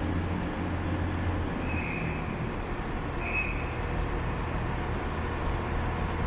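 Diesel train engines rumbling under a station canopy as a TransPennine Express Class 185 diesel multiple unit pulls away. The low engine hum drops away about a second and a half in, and two brief high-pitched squeals come at about two seconds and just over three seconds.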